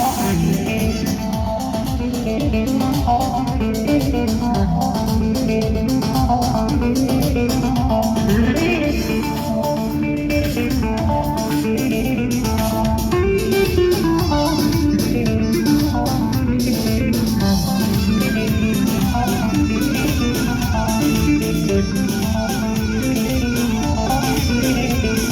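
Instrumental break in live folk-pop band music: an amplified plucked-string melody over a steady beat.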